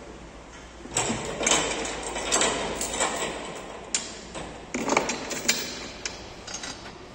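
Heavy steel pulling chain rattling and clinking against metal as it is handled and hooked onto a clamp on a truck cab's door pillar, with several sharp metallic knocks.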